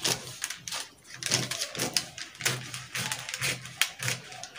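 Scissors snipping through a brown paper pattern, a quick run of sharp cuts with the paper rustling.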